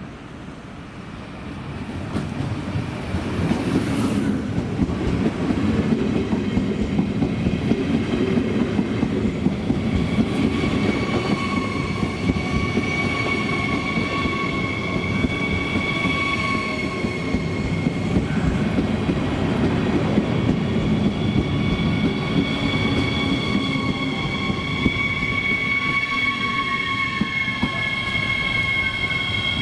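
A train running through the station, getting louder over the first few seconds and then staying loud, its wheels clattering over the rail joints. A steady high-pitched wheel squeal joins about ten seconds in, and one of its tones falls near the end.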